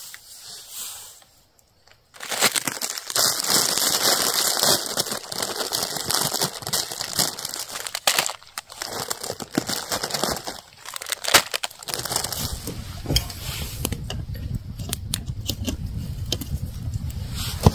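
Campfire crackling close by, a dense run of crackles with occasional sharper pops. A low rumble joins in about two-thirds of the way through.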